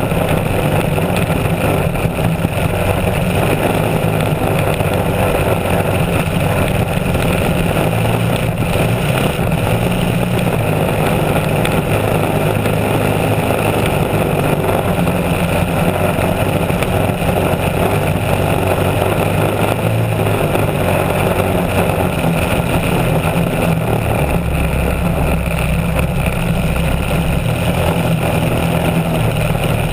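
Racing hydroplane's engine running steadily at speed, heard from on board, with the rush of water spray off the hull.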